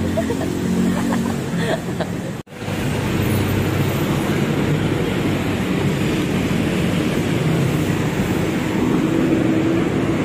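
Steady road traffic noise from passing cars, trucks and motorcycles, with a brief drop-out about two and a half seconds in.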